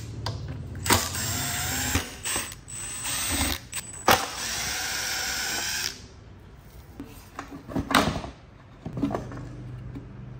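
A small power tool running in three short bursts over the first six seconds, with sharp clicks and knocks of tools and metal parts between and after them.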